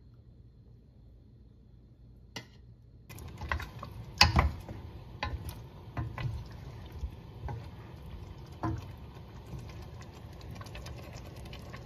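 About three seconds of near silence, then a simmering pot of chicken curry with a metal spoon clinking and scraping against the pot in irregular knocks as the chicken pieces are lifted out of the gravy.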